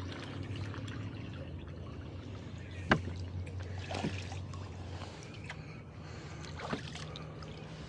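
Rowboat being rowed: water trickling and splashing off the oars, with a few sharp knocks, the loudest about three seconds in.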